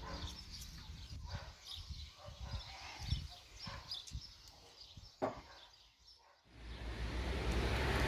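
Faint outdoor ambience with small birds chirping and a couple of light knocks. About two-thirds of the way through, wind starts buffeting the microphone and grows steadily louder.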